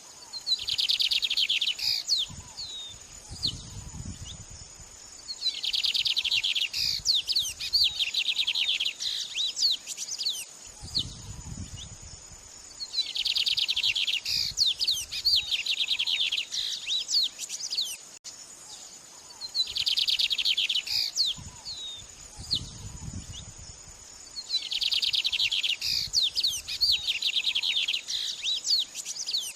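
Songbird masteran (training song for white-rumped shamas): five high phrases, each a dense buzzy burst of fast notes trailing into quick chattering, repeated every six or so seconds over a steady high insect-like whine, with low rumbles between some phrases.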